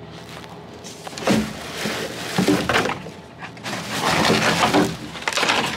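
Cardboard boxes and torn paper being shifted and pulled about by hand: a run of crackling, scraping and knocking handling noises that starts about a second in.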